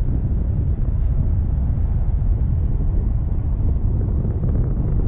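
Wind buffeting the camera microphone: a steady, fluttering low rumble with a thin hiss above it.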